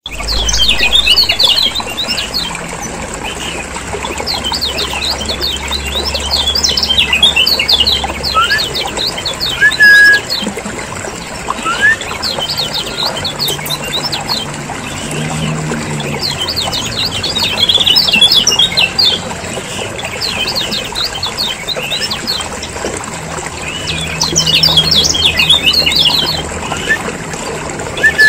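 Kecial kuning white-eyes chattering noisily in bursts of rapid, high twittering notes every few seconds, with a few short clear whistles, over a low steady hum. It is a lure recording (pikat) used to call in wild birds and to spur captive ones to sing.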